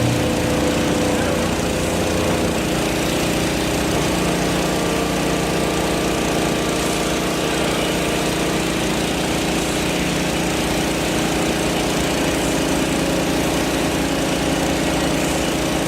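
An engine running steadily, its pitch shifting slightly about two seconds in.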